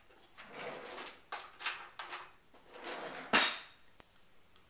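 Chopped salad ingredients scraped and tipped from a small dish into a large salad bowl: several soft scrapes and rustles, with one sharp knock of a utensil or dish against the bowl about three and a half seconds in.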